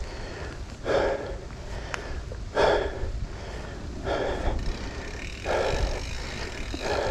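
Mountain biker breathing hard, winded from riding: a loud, heavy exhale about every second and a half. A steady low rumble runs underneath.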